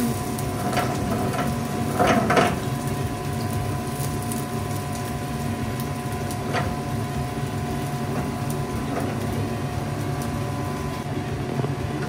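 Steady hum of a commercial kitchen exhaust hood, with two short clatters about two seconds in.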